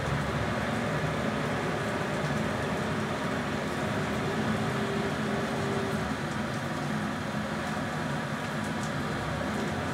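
A boat's engine running at a steady speed under a constant rushing noise of wind and water.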